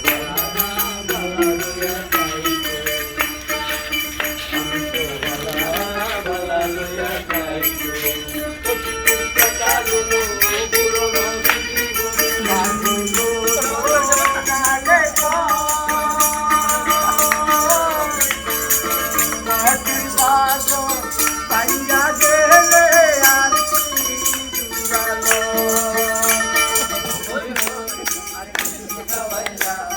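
Background music: a melody over a steady beat of bright, jingling percussion.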